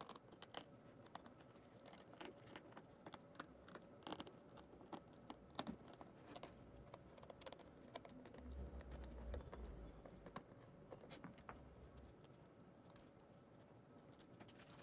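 Faint, scattered light clicks and ticks of a precision screwdriver working the small screws of a Realme 7i's inner body frame, with a soft low rumble of handling about two-thirds of the way through.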